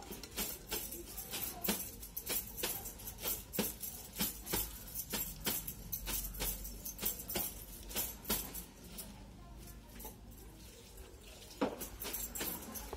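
Eating by hand from stainless steel bowls: fingers mixing and scraping food against the steel, with chewing, giving a string of irregular sharp clicks and taps, about two a second.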